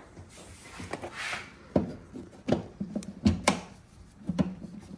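Charger cable handled and its plug pushed into an electric golf cart's charging port: a rustle, then about five sharp clicks and knocks, two of them in quick succession.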